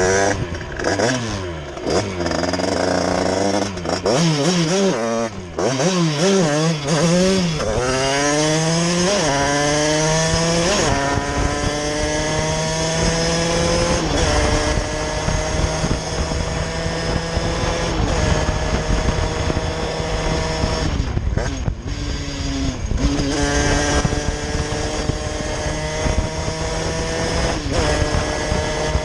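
Derbi 50cc moped's two-stroke engine with a 70cc Airsal cast-iron kit, 19 mm Dellorto carburettor and Bidalot expansion pipe, blipped up and down in short revs, then climbing steadily in pitch as it accelerates and holding high revs with brief dips, over a steady hiss of wind.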